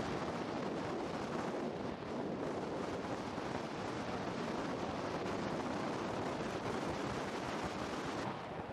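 Volcanic eruption: a steady, dense rushing noise from the erupting vent as it hurls glowing lava, with wind on the microphone. The higher part of the noise falls away near the end.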